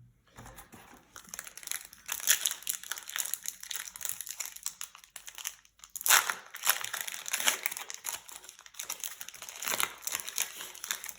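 Trading-card booster pack wrapper crinkling and crackling as the pack is opened by hand, in uneven handling noise with louder crinkles about two, six and ten seconds in.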